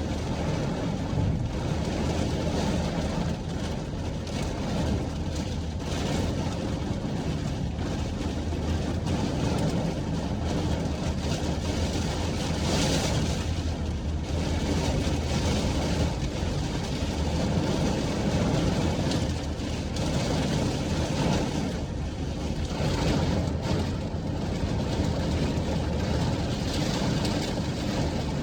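Wind and rain, a steady hiss over a deep low rumble, with a brief louder hiss about thirteen seconds in.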